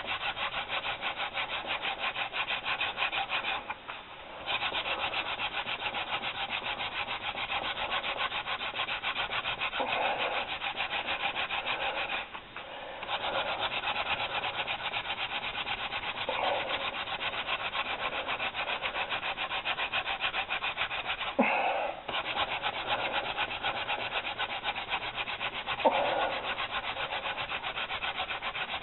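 Wooden hand-drill spindle spun fast back and forth between the palms, rubbing in the notch of a two-branch softwood baseboard to raise a friction-fire ember: a steady, rapid scratchy rubbing that breaks off briefly twice, with a few short squeaks.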